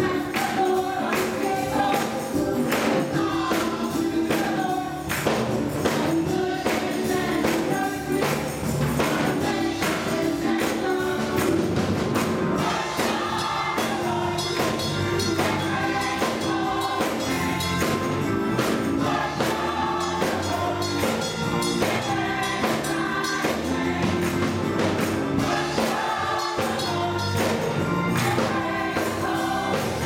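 Gospel choir singing an up-tempo song with organ accompaniment and a steady beat of hand-clapping.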